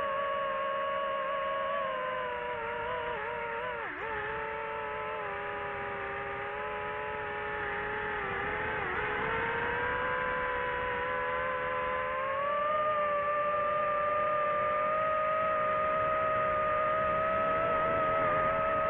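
DJI FPV drone's motors and propellers whining steadily. The pitch dips briefly twice, about four and nine seconds in, then rises a little past halfway and holds higher as the throttle changes.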